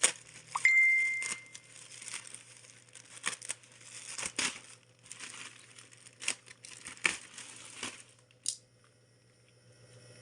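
Plastic packaging crinkling and rustling as stackable glass jars are unwrapped, with scattered clicks and knocks from handling, and one short clear ring just under a second in. The rustling dies down near the end.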